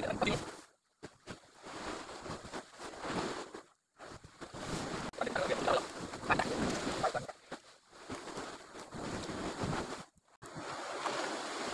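Sea surf and wind noise on the microphone, rising and falling unevenly and cutting out completely three times for a moment.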